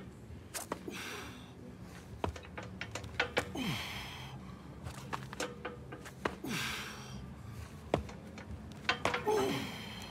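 A man breathing hard under a heavy strongman yoke, with four loud hissing exhales about three seconds apart. Scattered sharp clicks and a few short falling squeaks come in between.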